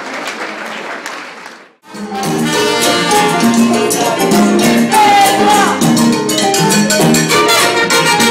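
A noisy hubbub of crowd sound stops abruptly just under two seconds in. A live Latin dance band with brass then comes in and plays loudly.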